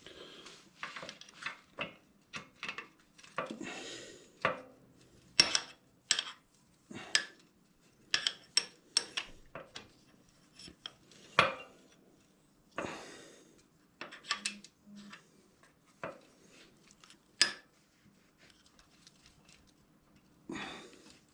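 Hand tools and steel motorcycle suspension parts clinking and knocking against each other at irregular intervals, with a few louder metallic knocks, during reassembly of the rear suspension linkage.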